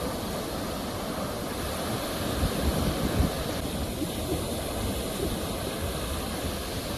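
Ocean surf: a steady rush of waves breaking and washing in, swelling briefly about halfway through.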